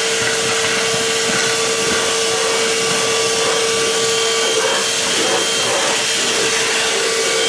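Homasy cordless handheld wet/dry vacuum running steadily while picking up cracker crumbs: a steady high motor whine over a rushing air hiss.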